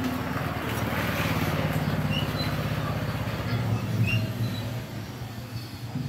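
Small motorcycle engine running steadily, with a brief rise in level about four seconds in.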